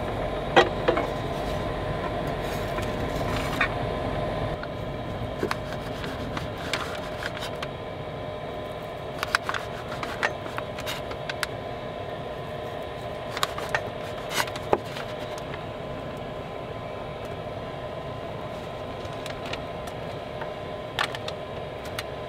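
A chef knife tapping and scraping as food is cut on a cutting surface and pushed onto a metal plate: scattered sharp knocks, several in quick clusters, over a steady low hum.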